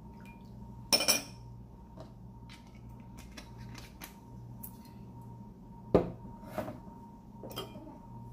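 Metal spoon clinking against a small glass bowl while a sauce is measured and stirred. A loud double clink comes about a second in and another loud clink about six seconds in, with lighter taps in between and after.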